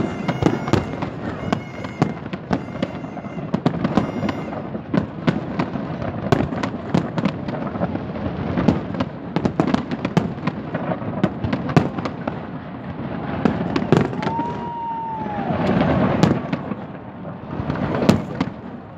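Large fireworks display: dense, rapid bangs and crackles of many shells bursting, over a continuous din. A short whistle rises and falls about fourteen seconds in.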